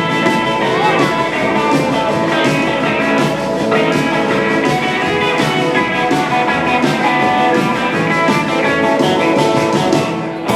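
Band playing fifties-style rock and roll, the guitar to the fore over a steady beat, with no singing.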